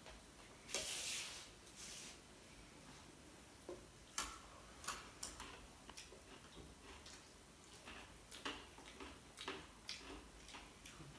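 Faint, irregular clicks and taps of plates and dishes being handled during a meal, with a brief rustle about a second in.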